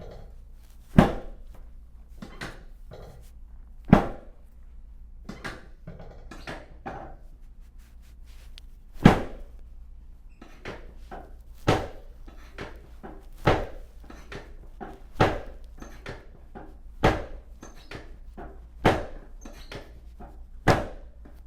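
Sharp thunks against a chiropractic treatment table, repeated during adjustments of a patient lying face down: a few spread out at first, then about one every two seconds in the second half, with softer knocks between them.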